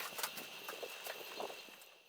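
Scattered light clicks and knocks, typical of dry firewood pieces being handled, over a steady high-pitched tone; it all fades out at the very end.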